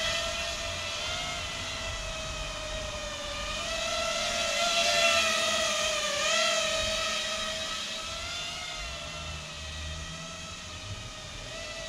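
Small FPV quadcopter's brushless motors (2204, 2300 kV, on 4S) and propellers whining steadily as it hovers under a heavy cinema-camera load, the pitch wavering slightly with throttle. It grows louder toward the middle and fades near the end as the drone moves off, with wind rumbling on the microphone underneath.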